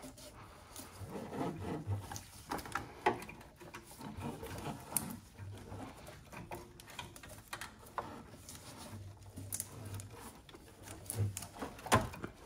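Gloved hands shifting rubber hoses and plastic parts in a car's engine bay: faint rubbing and rustling with scattered light clicks and knocks, the sharpest near the end.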